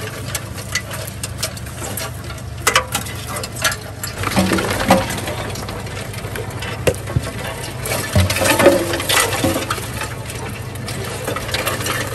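Live crawfish clicking and rattling against a stainless-steel sorting table, with scattered sharp knocks, over a steady low engine hum.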